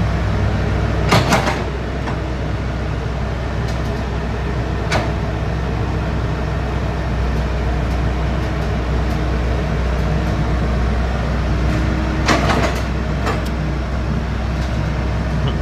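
Komatsu PC78 excavator's diesel engine running at a steady speed, with two short clusters of knocks, about a second in and near the end, and a couple of fainter single knocks between.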